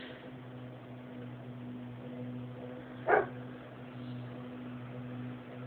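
Kenmore Oasis top-load washing machine running just after its fill shuts off, a steady low hum, with one short sharp sound about three seconds in.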